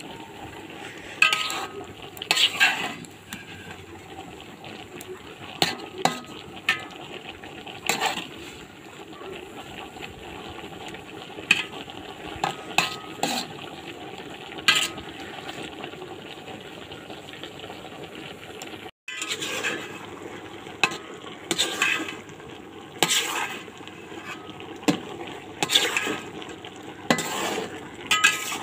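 Metal spatula scraping and clinking irregularly against a pan while taro stolons are stir-fried, over a steady sizzle of frying.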